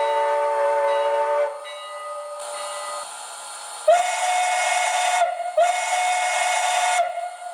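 Sound-decoder steam whistle from a model locomotive's speaker. A chime whistle of several notes cuts off about a second and a half in, and a short burst of steam hiss follows. Then come two long blasts of a single-note whistle, each with hiss behind it.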